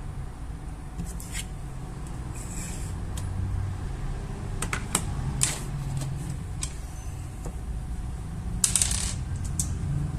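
Scattered light clicks and two short scrapes of small hardware being handled, over a low steady hum.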